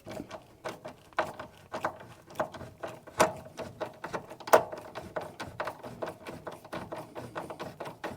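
A screw being driven by screwdriver through the cupboard base into a microwave's metal base: a run of irregular clicks and ticks, a few a second, with two louder clicks near the middle.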